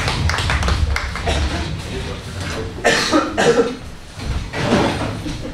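Indistinct voices and a cough.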